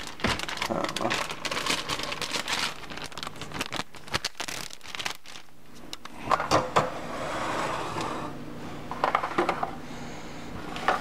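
Plastic bag crinkling and rustling as it is handled, with scratchy clicks that are densest in the first three seconds and sparser after.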